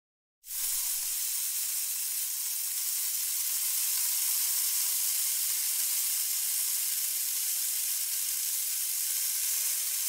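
Small trowel scraping lines into fine sand: a steady, even gritty hiss that starts about half a second in.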